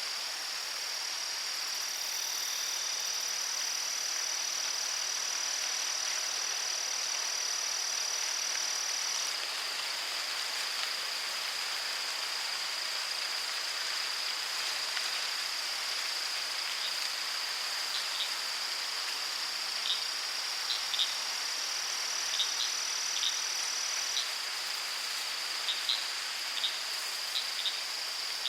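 Crickets trilling steadily in one continuous high-pitched drone over a steady background hiss, with short high chirps joining in during the second half.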